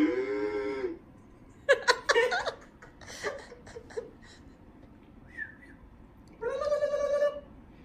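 A string of odd, short voice-like calls: one bending call at the start, a quick cluster of short calls and clicks, then one steady held call near the end.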